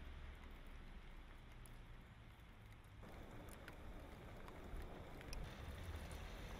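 Faint outdoor street ambience: a low rumble with an even hiss and a few small ticks, growing slightly louder about three seconds in.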